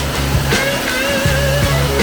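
Background music: rock-style track with sustained bass notes and a wavering held guitar-like melody line.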